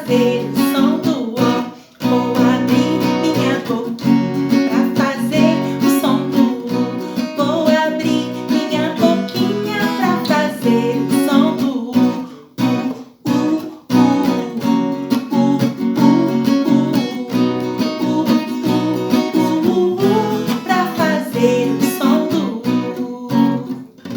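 Acoustic guitar strummed under a voice singing a children's song, with short breaks between phrases.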